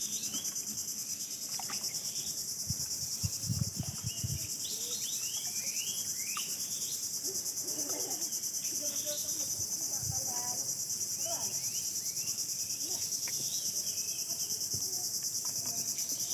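Insects trilling in a steady high pulsing drone, with brief chirping calls in the first half and a few low knocks about three to four seconds in.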